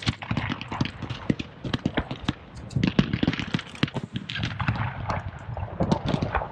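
Fireworks display: many sharp pops and bangs in quick, irregular succession as shells and comets are fired and burst, loudest about three seconds in.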